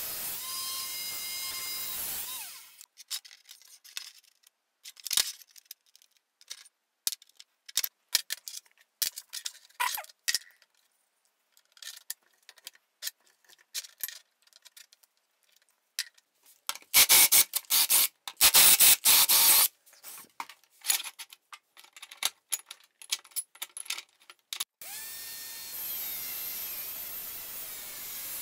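Angle grinder with a cut-off disc, mounted as a chop saw, cutting through steel, then winding down about two seconds in. Scattered clicks and clatter of metal pieces being handled follow, with two loud rasping bursts about two-thirds through. The grinder cuts steel again near the end.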